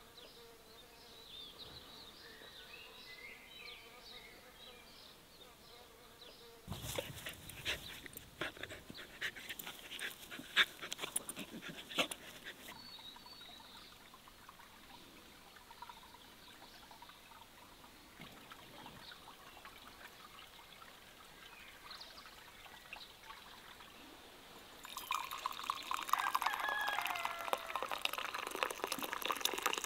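Tea poured from a painted ceramic teapot into a cup in the last few seconds, a steady splashing trickle and the loudest sound here. Earlier, faint outdoor quiet is broken by a few seconds of crackling and clicking.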